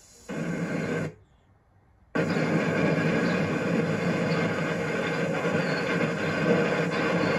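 A tape glitch cuts the sound out twice in the first two seconds, about a second of near silence at the longest. Then a steady rumble of a moving vehicle, heard from inside it, runs on.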